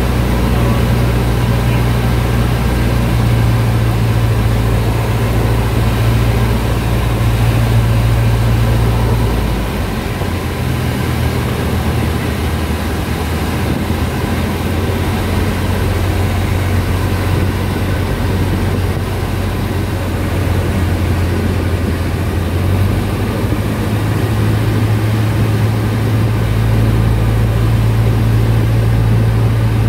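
Cessna 152's four-cylinder Lycoming engine and propeller droning steadily, heard inside the cockpit. The engine note drops about ten seconds in and rises again about two-thirds of the way through, as power is reduced and then added.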